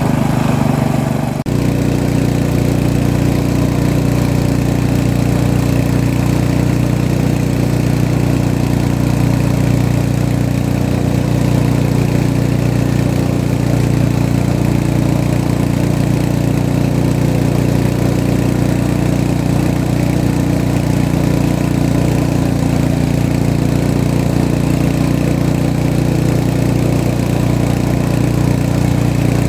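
Small boat's outboard motor running steadily at cruising speed, a constant low drone with a slight break about a second and a half in.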